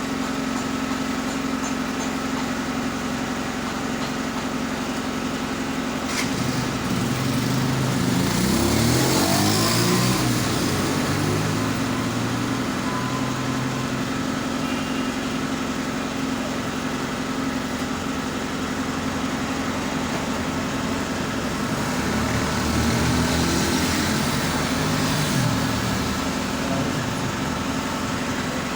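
Steady motor hum, with a second engine-like sound that rises and falls in pitch twice, about a third of the way in and again near three quarters.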